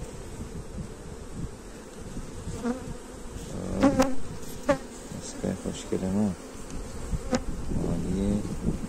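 Honeybees buzzing around an open hive, with single bees flying close by in humming sweeps that rise and fall in pitch. A few sharp clicks sound about halfway through.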